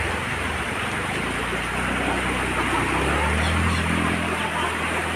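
Floodwater rushing and pouring over the edge of a submerged road, a steady roar of water. A low steady hum joins about a second and a half in.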